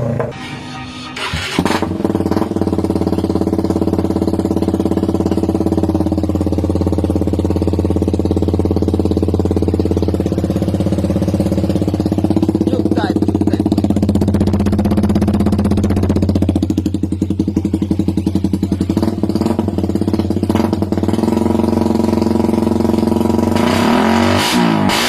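Suzuki Raider 150 single-cylinder engine running through an aftermarket exhaust pipe, idling steadily after a sudden start about a second and a half in, then revved a few times near the end.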